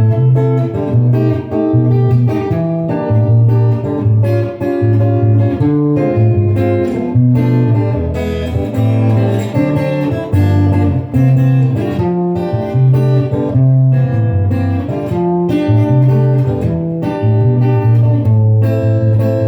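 Instrumental music led by acoustic guitar, plucked and strummed over a steady bass line.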